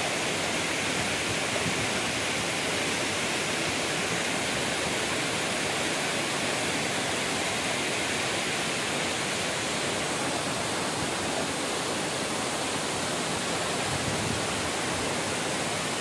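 Waterfall pouring steadily down a rock face: a constant, even rush of falling water.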